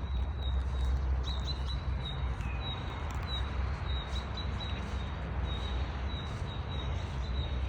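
A small bird repeatedly giving short high chirps at a steady pitch, about two to three a second, over a steady low rumble.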